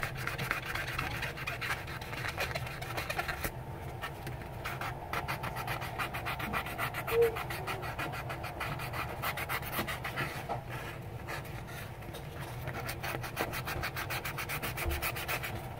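Multi-sided nail buffer block rubbed quickly back and forth over an acrylic nail, a long run of fast, even scratchy strokes as the filed acrylic is buffed smooth. A short, higher sound stands out about halfway through.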